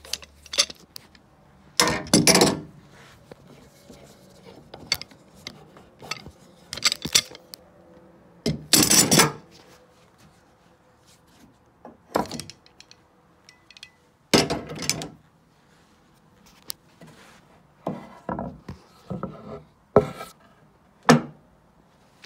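Irregular clunks and scrapes of wood and metal, each under a second, about a dozen spread apart: a new maple pinblock being handled and fitted against a grand piano's cast-iron plate.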